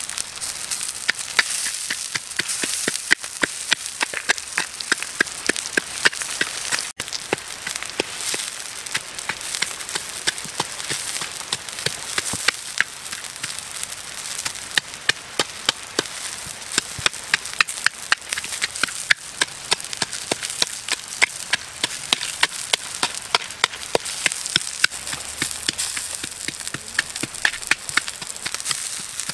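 Knife chopping red chillies and garlic in a coconut-shell bowl: a steady run of sharp knocks, a few a second, the blade striking the shell through the food.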